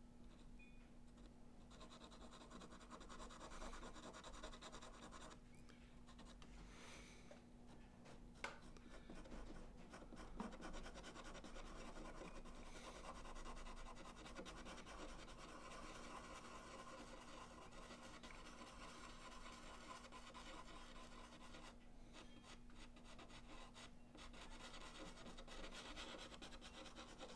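Faint scratching and rubbing of a soft pastel pencil stroked across thick, toothy watercolor paper, coming and going with brief pauses.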